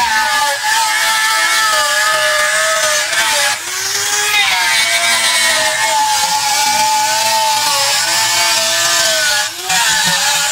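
Angle grinder with a wood-carving disc shaving into a large block of wood: a dense hiss of wood being torn away, under a motor whine that wavers in pitch as the disc bites. It eases off briefly twice, about three and a half seconds in and near the end.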